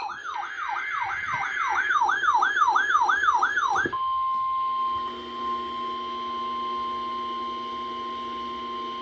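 Emergency Alert System alert tones announcing a severe thunderstorm warning. A siren-like electronic tone warbles up and down about three times a second, then about four seconds in switches abruptly to a steady, single-pitch attention tone.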